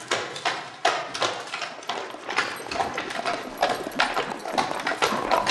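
Horse's hooves clip-clopping, about three beats a second, getting louder as the horse comes nearer.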